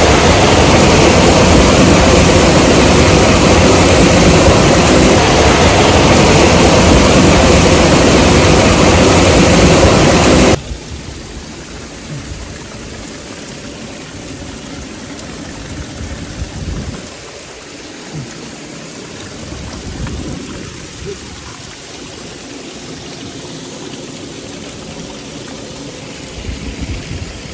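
Waterfall rushing water, a very loud steady roar of noise that drops suddenly about ten seconds in to a much quieter steady rush, with a few faint knocks over it.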